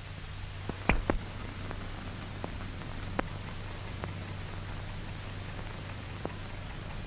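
Steady hiss and low hum of an old film soundtrack, with scattered irregular clicks and pops, the loudest pair about a second in.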